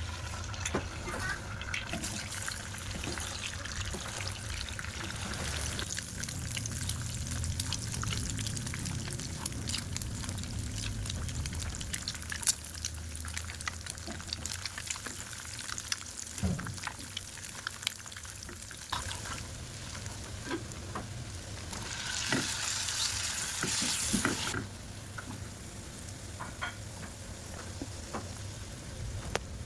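Food sizzling as it fries in a pan, with the clicks and scrapes of a utensil stirring it. A louder burst of sizzling lasts about two seconds, roughly three quarters of the way through.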